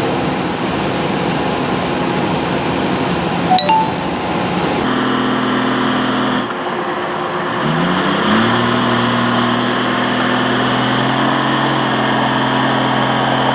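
Heavy diesel machinery engine running. It rises in pitch as it revs up about eight seconds in, then holds steady at the higher speed.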